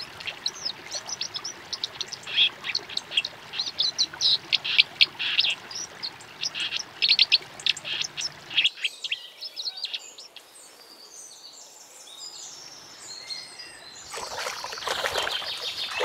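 White-throated dipper singing: a long, fast run of high warbling notes that breaks off about nine seconds in. After that come faint scattered chirps, then a swell of rushing noise near the end.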